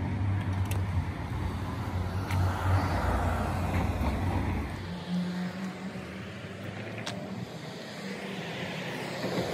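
A car driving slowly along the street, its low engine hum strong at first and fading away about five seconds in. A few faint clicks are heard on top of it.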